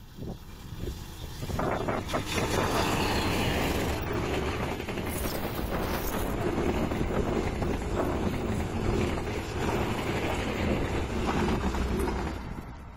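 Diesel-hauled passenger train passing close by at speed. The locomotive's engine swells as it arrives about two seconds in, then the coaches' wheels rush and clatter over the rails until the sound falls away near the end.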